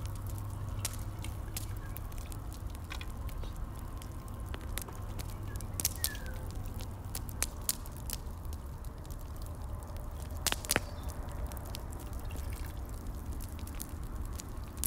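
Broth being ladled from a simmering pot over a plate of cooked sheep's head, with dripping liquid and light ladle clicks over a low steady rumble. A few sharper taps stand out about six, seven and a half and ten and a half seconds in.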